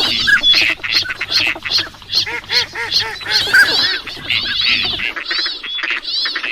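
Wild ducks calling, mallard among them: a fast, steady run of short quacking calls, several a second, layered over one another.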